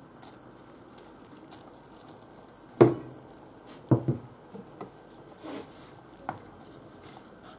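Shredded cooked chicken dropped from a glass bowl into a stainless steel pot of simmering chicken noodle broth, then a few sharp knocks against the pot, the loudest about three seconds in and a quick pair about a second later, as a wooden spoon starts stirring the soup.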